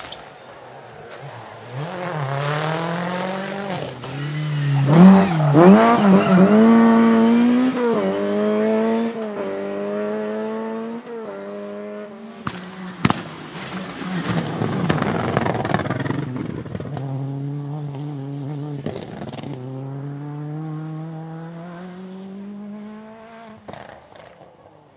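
Rally car engine revving hard, its note climbing and dropping repeatedly through gear changes as the car passes close. It is loudest about five seconds in, then runs on with a long steadier note that fades out near the end.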